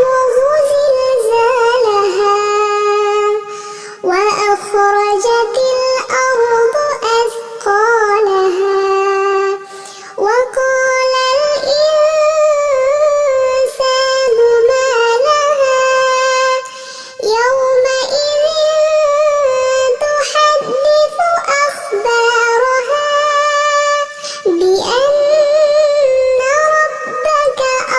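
A high-pitched voice chanting Quran recitation in the melodic tajweed style: long held notes with ornamented turns in pitch, in phrases separated by short breaths.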